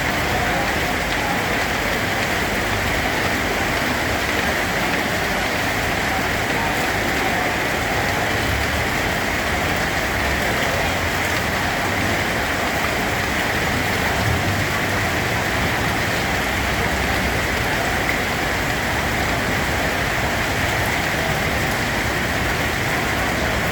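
Steady rain falling on a surface, an even unbroken hiss with no thunder or other events.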